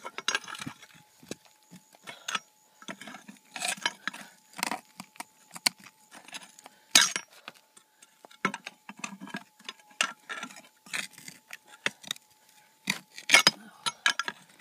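Prospecting pick chopping and scraping into rocky creek-bed ground: irregular sharp metallic strikes and clinks of steel on stone and gravel.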